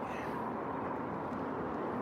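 Steady, fairly quiet outdoor background noise with no distinct events.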